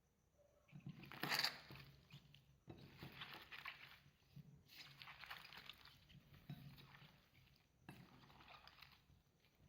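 Clay slime being squished and folded by hand, about five soft, crackly strokes a second or so apart, the loudest about a second and a half in.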